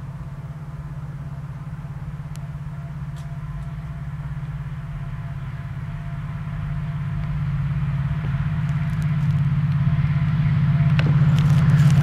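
WDP4B diesel locomotive's EMD 16-cylinder two-stroke engine approaching: a steady low drone that grows steadily louder. A few light clicks come near the end.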